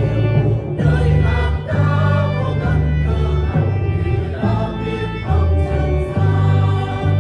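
Church choir singing a Vietnamese hymn with instrumental accompaniment, over held bass notes that change about once a second.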